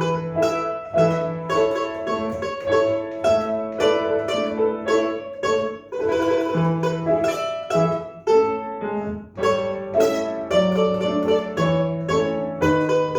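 A plucked string instrument playing a lively tune in quick, sharply picked notes, with longer low notes held underneath as accompaniment.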